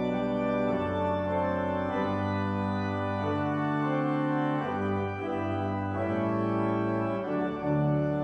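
Organ playing slow, sustained chords that change every second or so over held bass notes.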